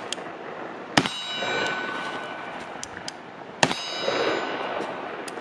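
Two rifle shots, about 1 second and 3.5 seconds in, each followed by the ringing of a steel target being hit.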